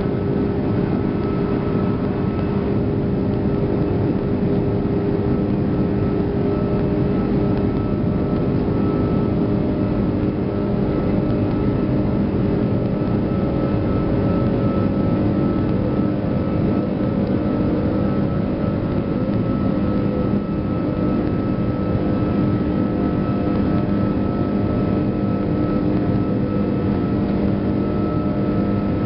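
Airbus A340-600's Rolls-Royce Trent 500 turbofans heard from inside the cabin, running steadily with a constant hum of several steady tones over a low rumble while the airliner taxis.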